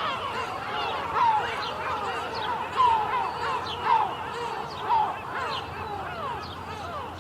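A flock of seagulls calling over one another: a steady stream of short cries that rise and fall in pitch, with a few louder calls standing out about once a second, thinning toward the end.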